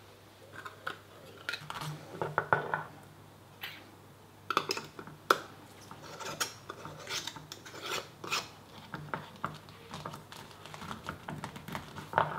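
Glass preserving jars clinking and knocking on a stone worktop as lids are put on and screwed down, with irregular taps and the scrape of the lid rings turning on the jar threads.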